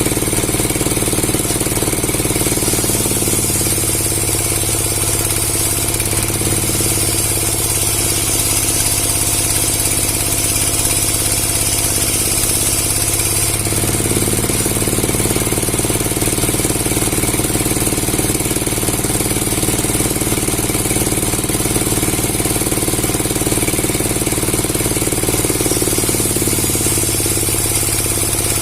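Motor-driven wood saw running steadily, with its tone shifting slightly about three seconds in, again midway and near the end.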